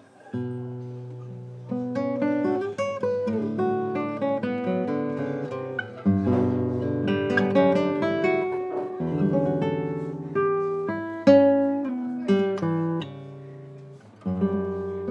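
Solo classical guitar playing a slow melody over ringing bass notes, plucked note by note. It enters with a chord just after a quiet start, and a new chord sounds near the end after a brief dip.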